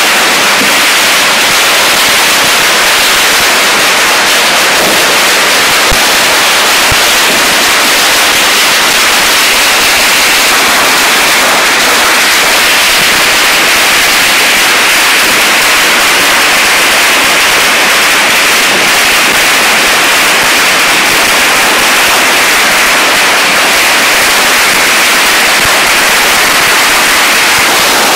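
Strings of firecrackers exploding continuously at close range, the bangs so dense that they merge into one steady, loud crackle without separate reports. The sound is distorted by an overloaded microphone.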